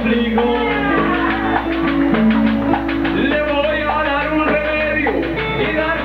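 Live trova paisa music: a band plays guitar and scraped percussion in a quick, steady Latin rhythm, with a man singing over it.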